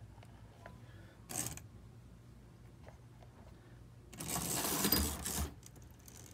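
Faint steady hum and light clicking of an old Tri-ang model locomotive chassis running on the track, with a brief rattle about a second in. About four seconds in comes a louder scraping rattle lasting about a second and a half as a hand handles the chassis.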